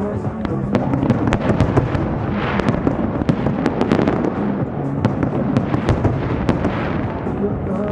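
Fireworks display: many bangs and sharp crackles of bursting shells in quick, irregular succession, over a continuous rumbling wash.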